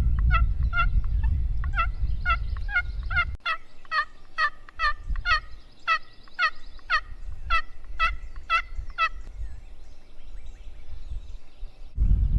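Friction turkey call (a scratch call) worked in a long run of yelps, about three notes a second, each note falling in pitch, stopping about nine seconds in. Wind rumbles on the microphone for the first few seconds and again near the end.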